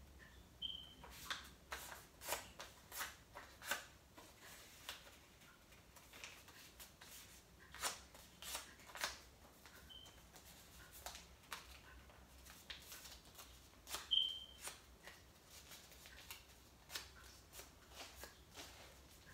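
Small slips of paper being handled and unfolded: irregular crisp crinkles and rustles. A few short high chirps cut through, the loudest past the middle.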